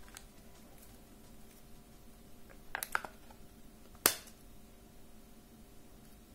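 A cylindrical lithium-ion cell handled in the plastic battery bay of a power bank charger: a few light clicks and scrapes about three seconds in, then a sharp snap just after four seconds as the cell is pressed back into its slot.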